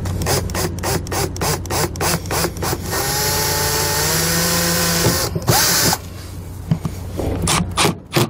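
Cordless drill with a very small bit drilling a pilot hole through sheet metal. Rapid ticks come about four a second at first, then the drill runs steadily for about two seconds with a whine that rises slightly in pitch. A second short run follows just after the middle.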